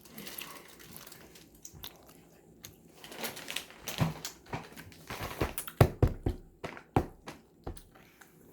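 Close-up eating sounds: chewing and mouth noises with sharp clicks and taps, sparse at first and busier from about three seconds in.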